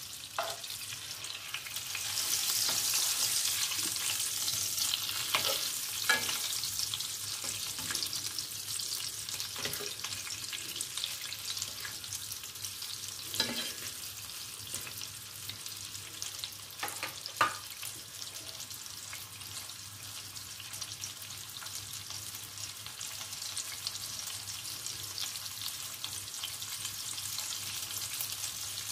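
Tied meat roll sizzling in oil and butter as it browns in a pan, the hiss loudest a few seconds in. A few sharp clicks of the utensils against the pan come as the roast is turned.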